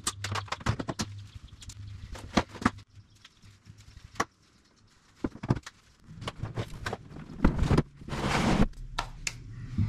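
Knocks and clatter of kayak fishing gear being handled, then a plastic Old Town kayak thudding onto a pickup truck's bed liner and sliding across it with a scraping rush about eight seconds in.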